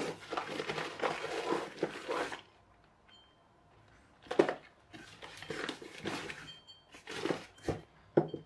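Rummaging through plastic toy construction parts: rustling of clear plastic bags and light clatter of plastic pieces, in several spells with a short pause about two and a half seconds in.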